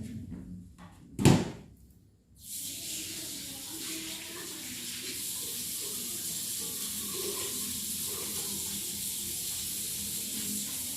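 A single loud knock about a second in, then water from a tap running steadily into a sink from about two and a half seconds in.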